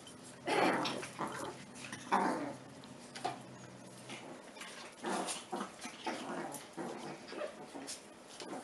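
Two puppies play-fighting, making short growls and yips in bursts, the loudest about half a second and two seconds in.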